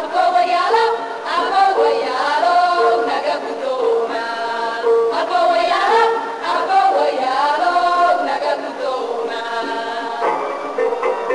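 A women's chorus singing a Somali song together, with an instrument sounding a short, repeated lower note at a steady pulse under the melody.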